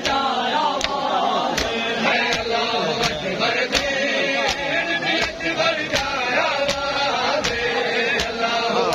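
Matam: a crowd of men slapping their chests in unison, one sharp strike about every three-quarters of a second, keeping time under male voices chanting a noha.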